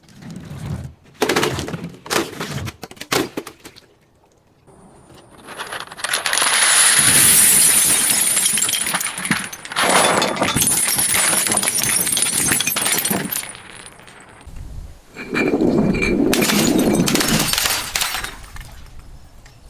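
Glass bottles breaking and being crushed: a few separate cracks and crunches, then several seconds of continuous crunching and shattering glass, and another loud burst of crunching near the end.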